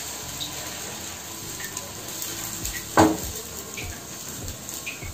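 Ridge gourd dosa batter sizzling on a hot pan as a steel ladle spreads it in circles. A single sharp clink, the loudest sound, comes about three seconds in.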